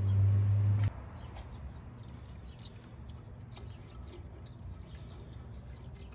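A low held hum cuts off about a second in. Then dilute sulfuric acid is poured in a thin stream into a glass beaker of scrap iron, a soft trickle with scattered faint drips and ticks.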